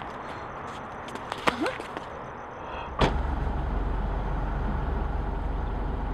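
A single sharp thud about halfway through, then a car engine idling with a steady low rumble.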